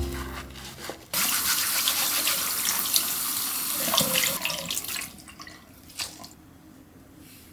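Water running from a tap, starting suddenly about a second in and stopping after about three and a half seconds, followed by a few faint clicks and knocks.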